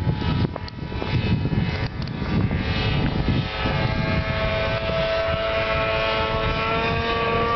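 Personal watercraft (jet ski) engine running at speed on the water, a steady whine that grows louder and clearer through the second half. Wind rumbles on the microphone in the first half.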